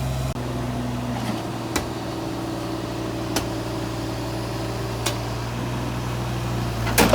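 Work machine's engine running steadily, with a handful of short sharp knocks every second or two.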